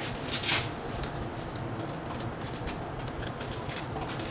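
A short rasp of a calf brace's hook-and-loop strap being handled, about half a second in, followed by faint rustling of the brace's fabric.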